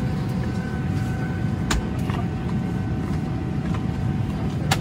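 Steady low cabin drone inside a Boeing 737-800 airliner, with a faint steady whine above it. Two sharp clicks cut through it, one a little under two seconds in and a louder one near the end.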